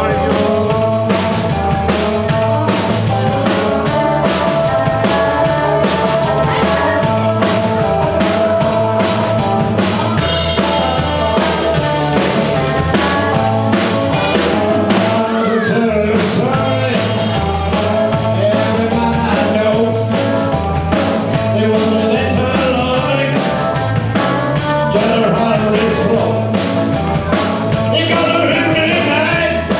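Live rock and roll band playing: electric guitars, bass guitar and drum kit driving a steady beat, with a singer on the microphone.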